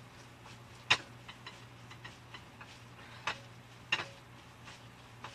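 Ground pork and beef being mixed by gloved hands in a mixing bowl: soft handling noise with a few sharp clicks and knocks against the bowl, the loudest about a second in and two more about three and four seconds in.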